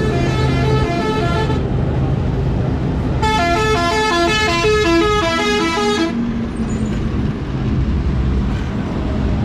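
A vehicle runs with a steady low rumble while a tune of quick stepped notes plays twice: briefly at the start, then for about three seconds from about three seconds in.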